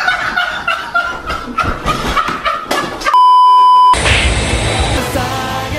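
A steady, high edit bleep tone lasting just under a second, about three seconds in, the loudest sound here, cutting off a loud, jumbled stretch of sound; a bass-heavy beat comes in right after it.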